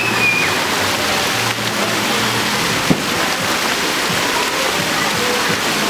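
Steady rushing and splashing water of a crowded swimming pool, with a child's short high call just after the start and a single sharp knock about three seconds in.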